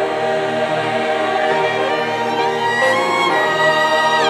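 Choir singing with a string orchestra in held, sustained chords.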